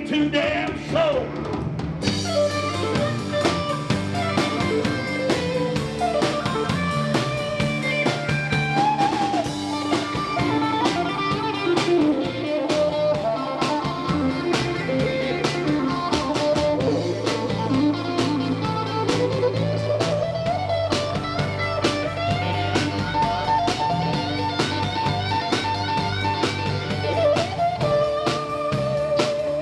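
Live country band playing an instrumental passage: a lead guitar line with bent, sliding notes over bass and a drum kit. The drums come in about two seconds in.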